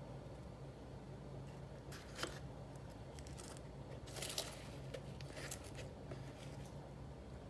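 Faint scraping and crackling of an eggshell being scooped through loose potting soil in a paper bowl, with the sharpest crackles about two seconds and about four seconds in, over a low steady hum.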